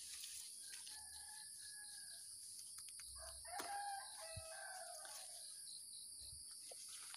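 Rooster crowing faintly, twice: one call about a second in and a longer one around three seconds in.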